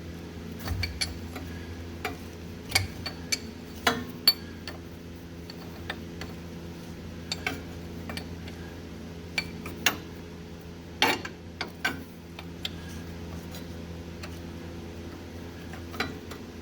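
Irregular metallic clicks and clinks of a wrench working on a tight starter mounting bolt, over a steady low hum.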